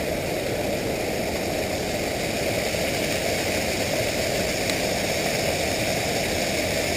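Motorcycle running steadily, its engine drone mixed with wind noise.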